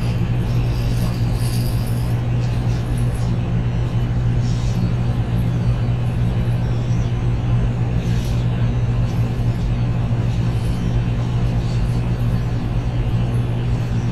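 Steady low hum inside a JR Kyushu 813 series electric train car, with faint higher sounds coming and going.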